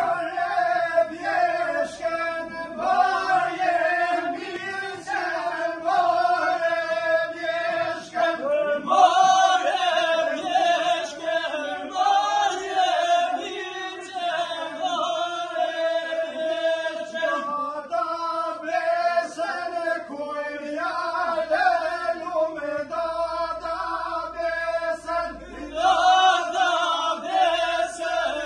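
A group of voices singing an Albanian highland folk song together in a chant-like style, for a line dance.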